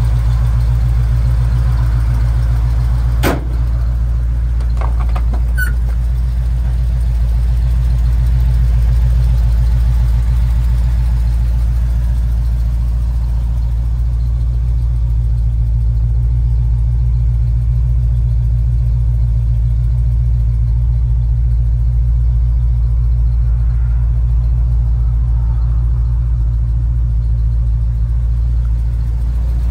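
1980 Chevrolet K10 pickup's engine idling steadily, a continuous low rumble, with one sharp click about three seconds in.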